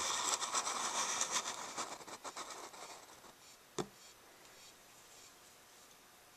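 A large beetle's legs scratching and scrabbling against the wall of a clear container as it struggles in a mantis's grip: a dense run of small scrapes and clicks for about three seconds, then a single sharp click near four seconds in.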